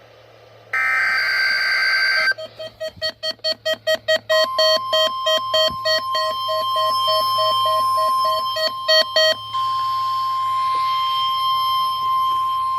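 The end of an EAS/SAME digital header, a harsh data burst about a second in, then a weather radio's alert beeping about four times a second. About four seconds in, the steady 1050 Hz NOAA Weather Radio warning alarm tone starts and holds on, marking a Required Weekly Test.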